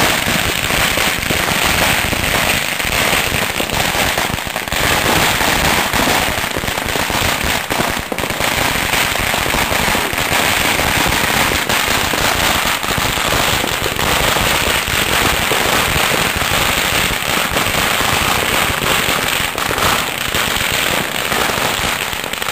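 A duizendklapper, a string of a thousand firecrackers, going off in a dense, unbroken rattle of rapid bangs.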